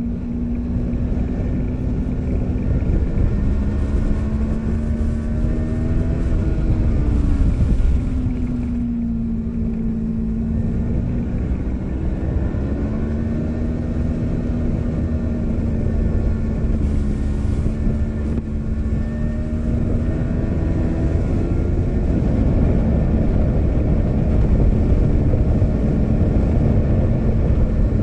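Onboard sound of a 2017 Yamaha R3's 321 cc parallel-twin engine at speed, its pitch rising and dropping several times with throttle and gear changes, over heavy wind rumble on the camera microphone.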